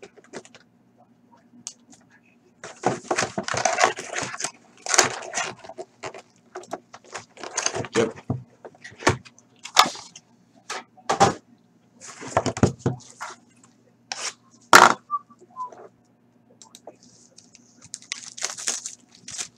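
Cardboard boxes of trading cards in shrink-wrap being handled, shifted and set down on a table: irregular rustling and scraping with several sharp knocks, the sharpest about three-quarters of the way through.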